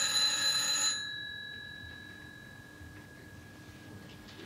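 Telephone bell ringing: one ring stops about a second in and its tone dies away slowly, then the next ring starts right at the end.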